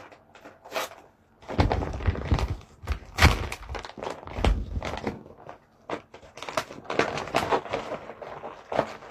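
A wrapped gift being handled and opened: a run of irregular knocks and thuds, with rustling between them and the heaviest thuds about two and four and a half seconds in.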